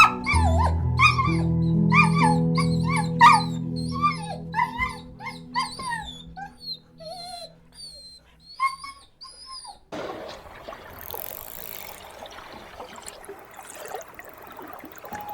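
A dog whining and yipping in a quick run of short, high, bending whimpers, over soft piano music that fades out about halfway through. After about ten seconds the calls stop and a steady outdoor hiss remains.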